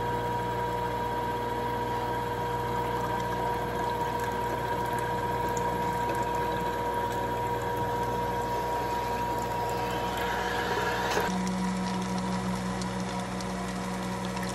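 PURE two-stage juicer's motor-driven press running steadily: a machine hum with a steady higher whine as it squeezes cloth bags of fruit mash, with juice streaming out. About eleven seconds in, the sound cuts abruptly to a different, lower steady hum.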